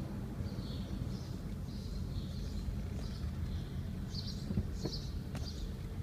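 Car driving slowly, heard from inside the cabin as a low steady rumble of engine and tyres, with faint high bird chirps every second or so. There is one light click about five seconds in.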